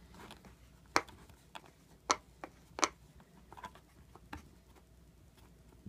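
Faint scattered ticks and taps of fingers pressing Play-Doh into a plastic mold on a toy playset, with three louder clicks about one, two and three seconds in.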